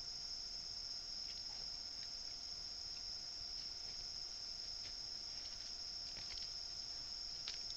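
Steady high-pitched chirring of crickets, with a few faint crackles like rustling in dry leaf litter near the end.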